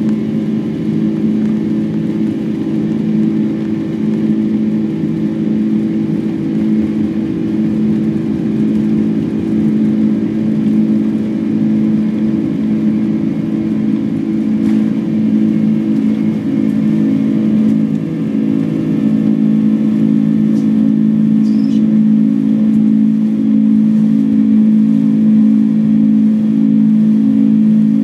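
Boeing 747-200's jet engines at takeoff thrust, heard from inside the passenger cabin: a loud, steady drone with a strong low hum. Rumble from the wheels on the runway runs under it and smooths out about two-thirds of the way through as the jet lifts off.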